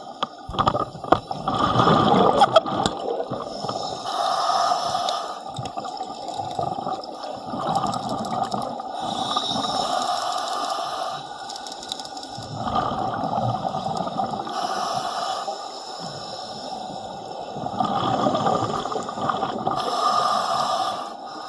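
Slow, repeated breaths of a diver in a full-face mask underwater, each breath a noisy swell of a second or two, coming every few seconds, with water noise between. A few sharp knocks near the start.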